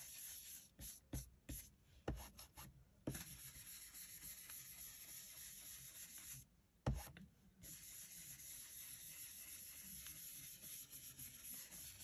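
Soft, steady rubbing of an ink blending brush worked over card to blend distress ink, with a few light taps in the first few seconds and one more about seven seconds in.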